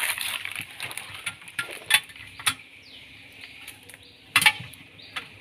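Scattered hard clicks and knocks of a popcorn machine's metal kettle unit and glass cabinet being handled and set in place, the loudest a quick double knock about four seconds in.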